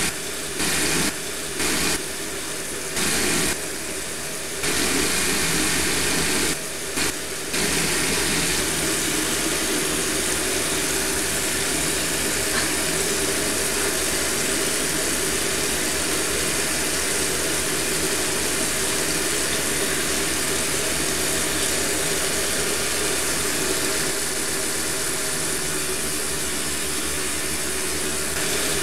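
A steady mechanical drone with hiss and a low hum. For the first several seconds it cuts abruptly louder and quieter, then runs on evenly.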